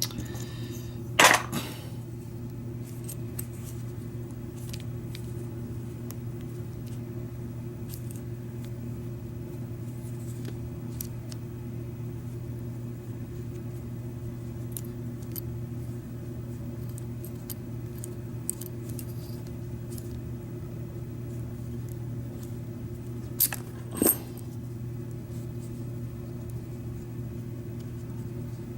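Small metal clicks and taps from handling the cylinder and parts of a Schlage F-Series knob lock, with one sharp, loud click about a second in and two more close together near the end, over a steady low hum.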